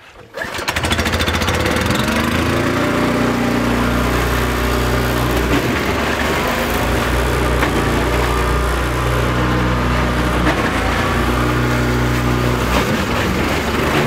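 Petrol-engined wood chipper starting up about half a second in and running loud and steady at speed, shredding tuna into burley.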